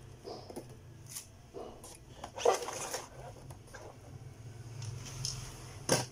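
Beyblade spinning top winding down on a plastic stadium floor, with light clicks and a short rattle about halfway through as it tips over and stops. A sharp click near the end as a hand picks the top up.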